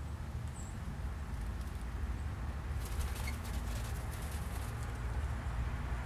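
Quick flutter of a mourning dove's wings about three seconds in, lasting under two seconds, over a steady low rumble.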